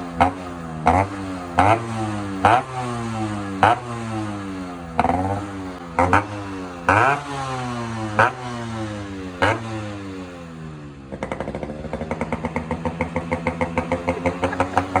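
Yamaha RX-series single-cylinder two-stroke motorcycle engine with a newly fitted aftermarket 'built' exhaust, revved in about ten quick throttle blips, the revs dropping back after each. About eleven seconds in it settles into a fast, pulsing two-stroke idle.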